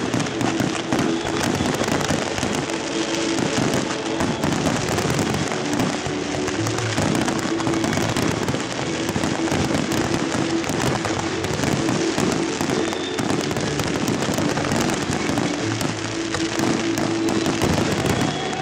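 Fireworks display: many shells fired in quick succession, a continuous barrage of bangs and crackle, with music playing alongside.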